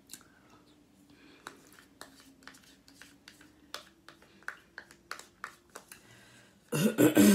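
Close-miked eating sounds: a run of small sharp mouth and utensil clicks and smacks, then near the end a short, loud voiced sound from the eater, falling in pitch.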